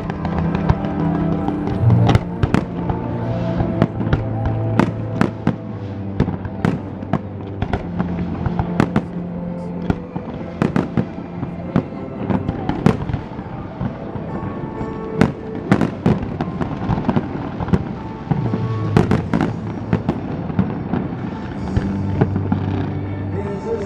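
Fireworks bursting in a rapid, irregular string of bangs, heard over a music soundtrack played through loudspeakers.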